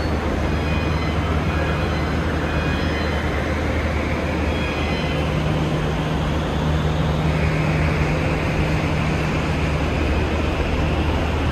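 Roosevelt Island Tramway cabin in motion: a steady low hum and rumble with a whine that rises in pitch over the first several seconds, then holds steady.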